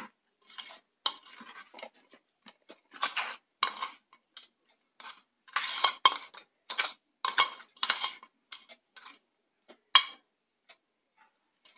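A steel spoon scraping and tapping against a stainless-steel bowl as thick, coarsely ground coconut chutney is scooped out onto a plate. It comes as a run of short, irregular scrapes and clinks, the last one about ten seconds in.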